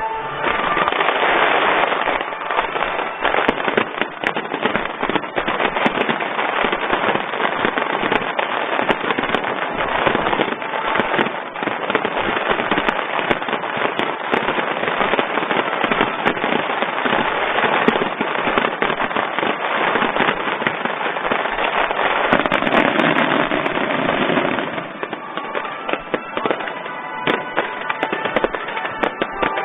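Fireworks display: a dense, unbroken barrage of shell bursts and crackle, with music playing underneath. The barrage thins about 25 seconds in, leaving the music more audible.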